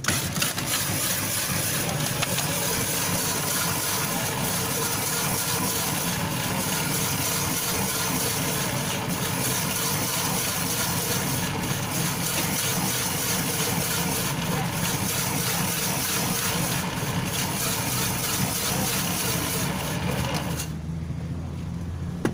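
Electric ice-shaving machine running, its rotating blade shaving a block of ice: a steady grinding noise over a low motor hum. It switches off suddenly near the end.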